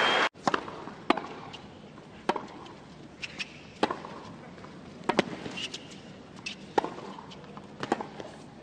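Tennis ball being struck and bouncing in a rally on a hard court: sharp, separate racket hits and bounces about every second, over a quiet crowd. A burst of applause cuts off abruptly just after the start.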